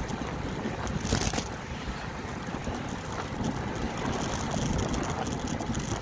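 Wind rushing over the microphone of a camera riding on a moving bicycle: a steady rumbling hiss that flutters, with a stronger gust about a second in.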